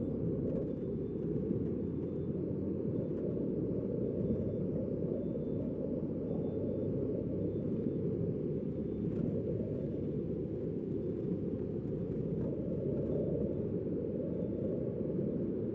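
Strong wind buffeting the microphone: a steady low rumble with no distinct events.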